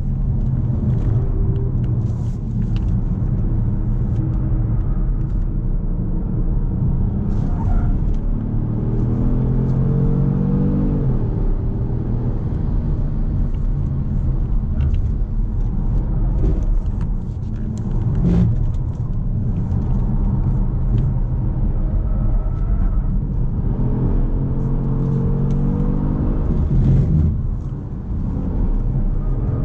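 2018 Kia Stinger GT's twin-turbo 3.3-litre V6 running hard at full throttle, the engine pitch climbing twice as it accelerates, each climb broken off by a short dip at a gear change.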